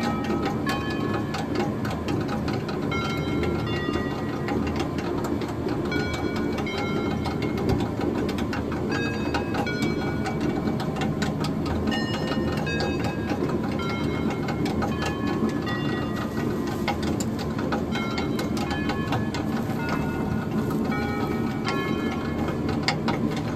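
Traditional water-powered stone flour mill running: the millstones grind with a low rumble under a steady, rapid rattling clatter.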